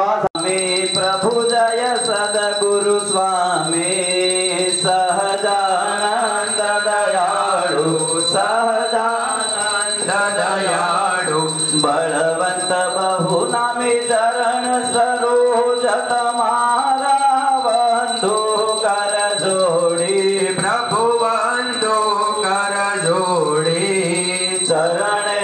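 Devotional music: a sung hymn with instrumental accompaniment, the melody rising and falling throughout, over a steady thin high-pitched ringing tone.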